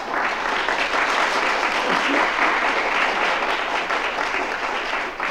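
Live audience applauding at the end of a comedy routine, dying down near the end.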